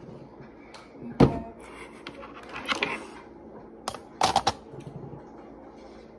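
A few sharp clicks and knocks of small objects being handled, the loudest about a second in and a quick cluster of them near the four-second mark.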